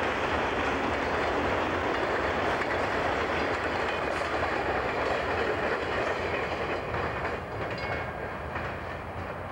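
CSX freight train rolling past, its cars' wheels running steadily over the rails, the sound slowly fading over the last few seconds as the train moves away.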